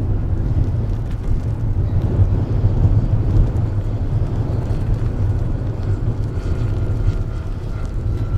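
Low wind rumble over the microphone, with the radio-controlled scale Dewoitine D.26 model airplane droning overhead; a thin whine from the model's propeller drive comes through from about six seconds in.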